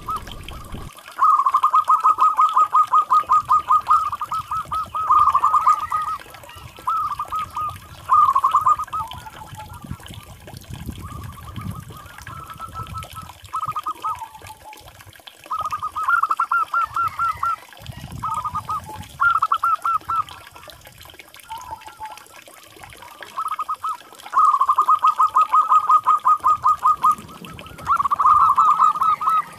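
Zebra doves (perkutut) cooing: repeated runs of quick, staccato notes at one pitch, in bouts of a second to about three seconds with short pauses between them.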